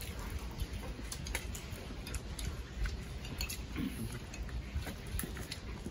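Scattered light clicks and taps of spoons on plates and bowls as people eat, over a low steady rumble, with a brief murmur of voice about four seconds in.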